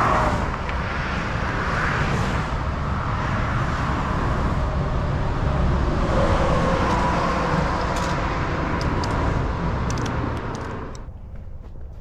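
Highway traffic on the Pennsylvania Turnpike: cars and trucks passing at speed in a steady rush, with a faint whine over it for a few seconds in the second half. The traffic noise drops off sharply about eleven seconds in.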